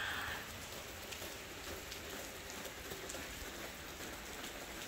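Steady heavy rain, with water spilling off the roof tiles and landing in scattered faint drips.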